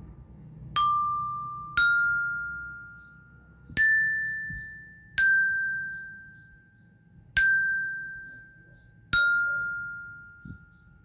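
Bell lyre's metal bars struck one at a time with a mallet, playing a slow melody: six single notes of changing pitch, each ringing out and fading before the next.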